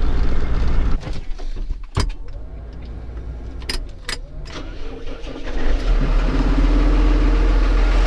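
A few clicks and knocks in a New Holland tractor cab, then the tractor's diesel engine starting about six seconds in and settling into a steady low idle.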